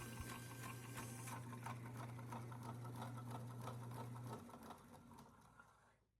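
Homemade bandsaw running, a steady low hum with a regular light ticking, about three or four ticks a second. The hum stops about four seconds in, and the ticking fades out as the saw winds down.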